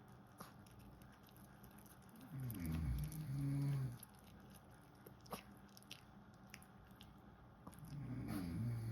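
A sleeping pet snoring: two long, low snores about five and a half seconds apart, the second running on past the end, with faint small clicks in between.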